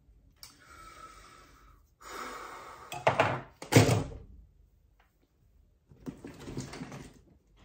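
Rustling and handling of objects on a table, with two loud thuds about three and four seconds in.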